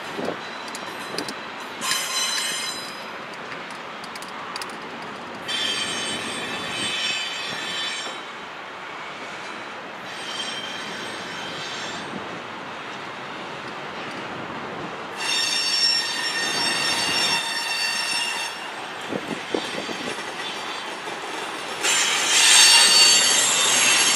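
Freight train wheels squealing against the rails on a curve, in about five separate high-pitched bursts over a steady rolling rumble, the last one near the end being the loudest.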